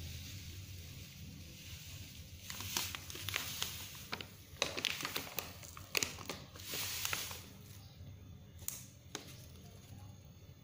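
Crinkling and rustling of a plastic packet of powdered detergent being handled and poured, with many small crackles and clicks. It is busiest from about two and a half to seven and a half seconds in, then thins to a few isolated clicks.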